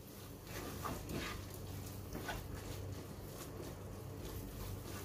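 Faint cooking sounds from a nonstick pan of masala: a few soft taps and scrapes, about a second in and again a little later, over a low steady hum.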